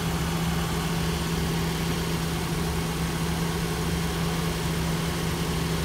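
A 2007 Ford Econovan's 1.8-litre petrol engine idling steadily, heard close up from the open engine bay.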